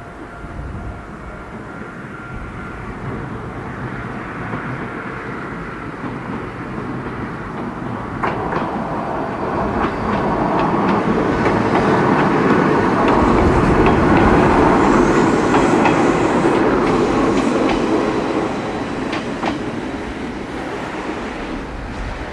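Electric train running slowly past. It grows louder to a peak about two-thirds of the way through, then fades, with clicks of the wheels over rail joints. Strong wind buffets the microphone throughout.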